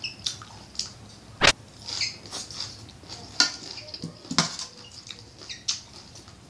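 Close-up eating sounds of spicy papaya salad with beef tripe: wet chewing and lip smacks with scattered clicks, and one sharp knock about one and a half seconds in.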